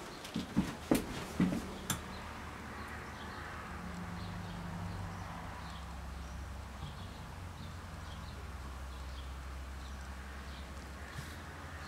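A few sharp knocks in the first two seconds, then a steady low hum with faint, high squeaks from miniature dachshund puppies scattered through it.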